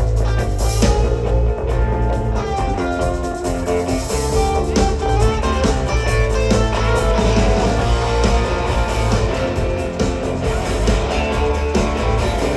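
Live rock band playing an instrumental passage of a rock-and-roll song, with electric guitars out front over bass and drums, loud and steady with no singing.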